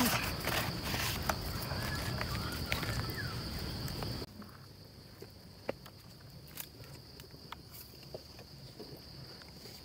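Outdoor ambience with a steady high insect drone, crickets or cicadas, running throughout. For the first four seconds it sits under louder rustling and handling noise from the leaves and rice. The level then drops suddenly, leaving the insects and a few small clicks.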